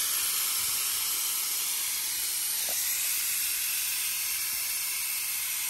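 Nitrogen hissing steadily out through a manifold gauge set's hoses as the valves are cracked to bleed off an AC system's pressure-test charge of just over 150 psi.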